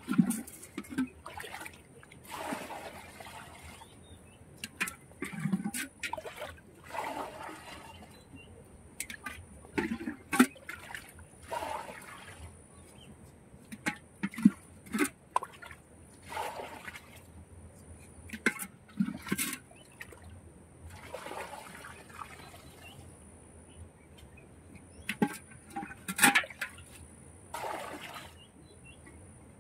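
Muddy water being bailed out of a small pit with a metal pot: repeated scoops, pours and splashes at an irregular pace, one every one to three seconds.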